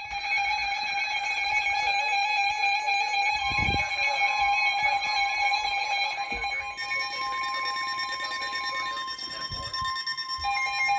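Steady electronic emergency alert tones: several held pitches, with a second tone joining a few seconds in and the mix shifting twice more before the end.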